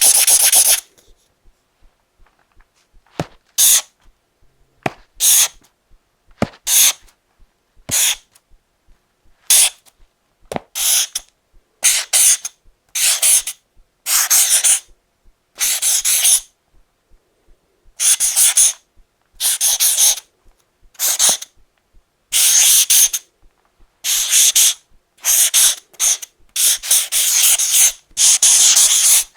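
Felt tip marker drawing strokes across paper: a string of short scratchy rubs, each under a second, some starting with a small tick as the tip touches down. The strokes come closer together toward the end.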